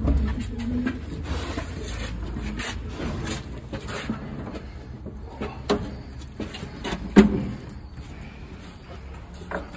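Irregular scuffs and knocks of people climbing a narrow stone stair over a low rumble, with one sharp knock about seven seconds in.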